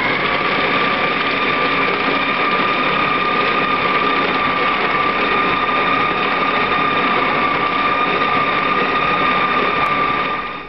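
Electric food processor motor running at a steady whine as its blade grinds raw duck meat with walnuts and onions into a stuffing, then switching off and winding down near the end.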